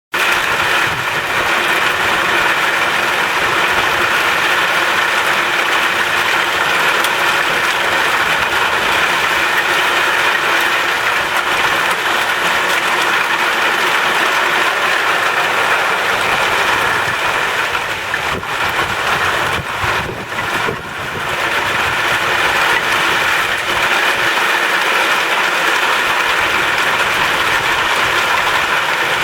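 Heavy thunderstorm rain pouring down in a loud, steady hiss, easing briefly a little past the middle.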